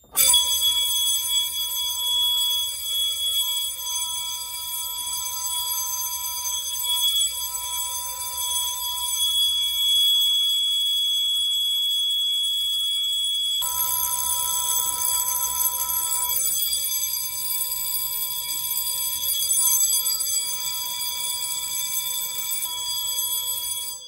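Duct smoke detector's sounder giving a steady, unbroken electronic alarm tone. It starts abruptly and signals a supervisory alarm from the activated duct detector.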